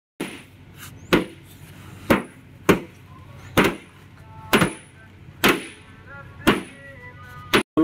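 A series of sharp knocks or blows, about one a second, nine in all.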